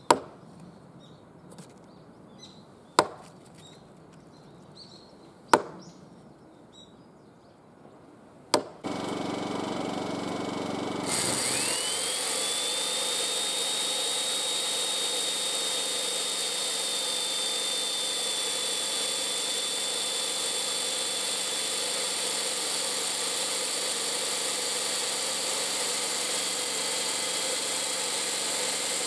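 Wooden mallet striking a chisel into a timber beam four times, a few seconds apart. Then an electric chain mortiser starts up, its whine rising and settling into a steady high pitch as the chain cuts a mortise in the beam.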